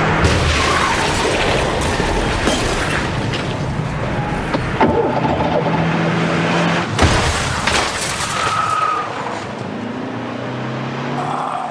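Staged car crash sound effects: loud engine and road noise with several heavy impacts, the biggest about seven seconds in, and held notes of dramatic music underneath.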